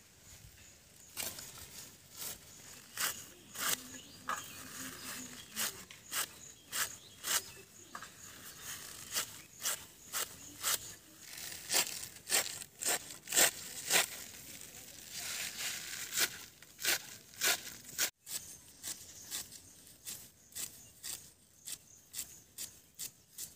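Giant taro (maan kochu) leaves being chopped on a bonti, the curved blade on a wooden base: an irregular run of crisp cutting strokes through the rolled leaves.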